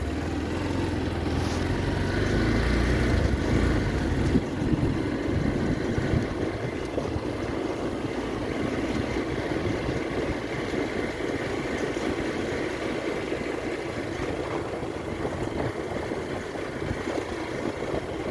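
Hero Hunk 200R motorcycle's single-cylinder engine running at low speed on a gravel road, mixed with tyre and road noise, a little louder for the first few seconds, with a single knock about four seconds in.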